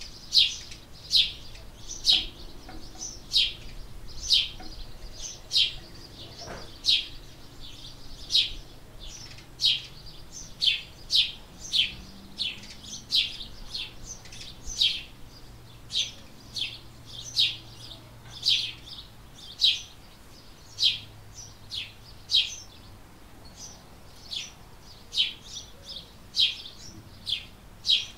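House sparrow chirping: a long series of single, loud cheeps, a little more than one a second, the territorial song of a male.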